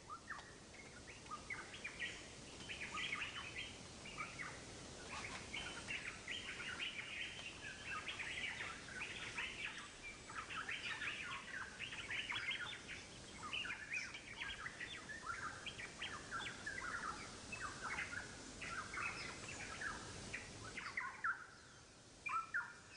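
Small birds chirping, many short high calls in quick succession that thin out near the end.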